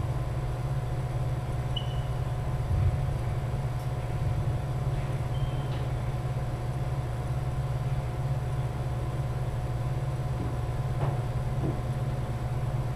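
Steady low hum of the indoor badminton hall, with a couple of short high squeaks of sneakers on the wooden court floor and a few faint taps.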